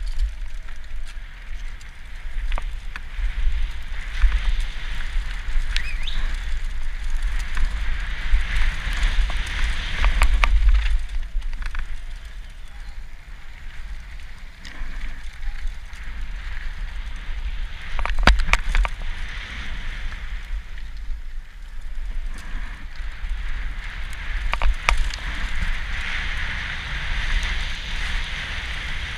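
Mountain bike riding down a dirt and gravel trail: wind noise on the microphone over the hiss of the tyres on the loose surface. Sharp clattering knocks come from the bike going over bumps, with a cluster of them about 18 seconds in.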